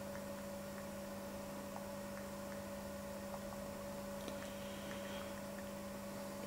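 Low, steady electrical hum from running electronic equipment, over faint hiss, with a few faint scattered ticks.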